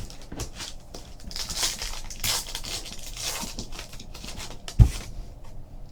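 Trading card pack being handled: foil wrapper crinkling and tearing and cards rustling against each other, with a single thump near the end.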